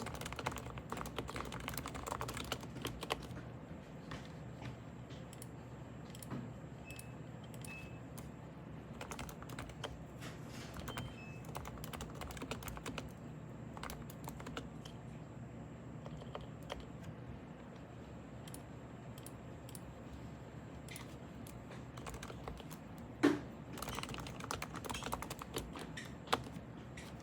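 Typing on a Topre Type Heaven keyboard with Topre switches: irregular runs of key presses, with one louder, deeper knock about three quarters of the way through.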